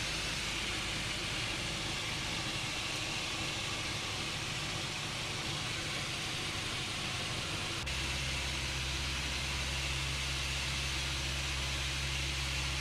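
Light aircraft cockpit noise during a gliding approach to land: the engine is throttled back near idle under a steady hiss of airflow. About eight seconds in there is a click, and the sound settles into a steadier low hum.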